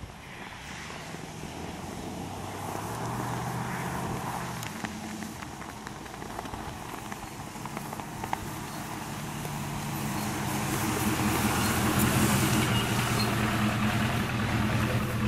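Truck engines running, with a steady engine note that builds louder over the second half as the vehicles draw closer.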